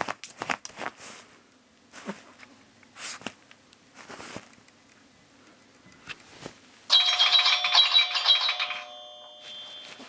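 An iPhone alarm tone playing from the phone's small speaker: a rapid run of repeating bright chime notes starts about seven seconds in and cuts off near nine seconds. Before it come scattered taps and scratches from the chihuahua's paws and nose on the phone and the bedding.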